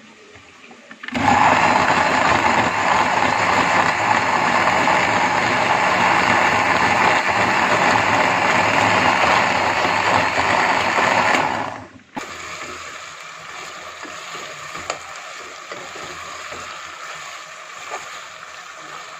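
Electric kitchen blender running steadily for about ten seconds, grinding browned fried onions and spice powder into a smooth masala paste. It starts about a second in and cuts off abruptly. After that comes a quieter, steady sizzle of chicken pieces frying in garlic and ginger in a pot.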